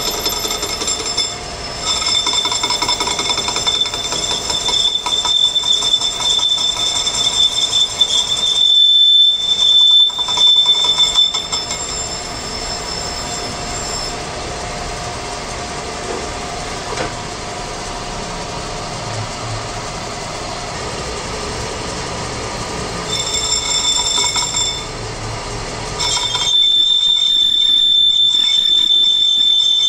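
Metal lathe cutting a large metal bearing cup for a flour mill: the cutting tool gives a steady, high-pitched whine over the machine's running noise. The whine is strongest about eight to twelve seconds in, drops away through the middle, and returns loud and steady near the end.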